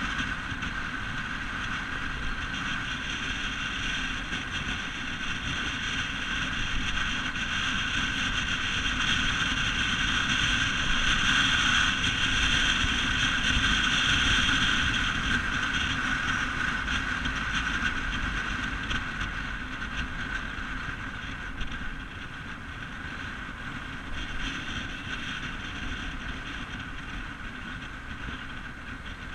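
Steady engine and road noise of a vehicle driving along a road, growing louder through the middle and easing off again after.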